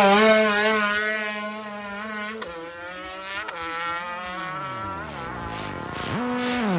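Two-stroke drag-racing motorcycle launching off the line at full throttle. Its engine note climbs sharply, then the pitch drops abruptly at each upshift as it pulls away and fades down the strip. Near the end another engine revs up and back down briefly.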